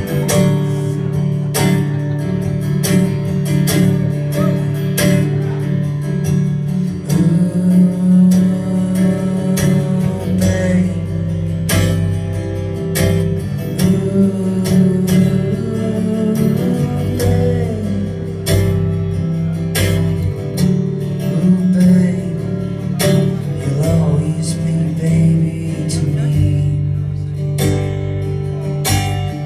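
Acoustic guitar strummed steadily in a rhythmic chord pattern, with a man's voice singing a few phrases over it.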